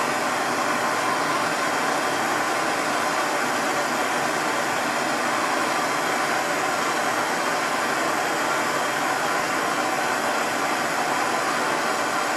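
Handheld gas torch burning with a steady, loud hiss while it heats seized, factory-Loctited bolts on a turbo actuator housing to free them.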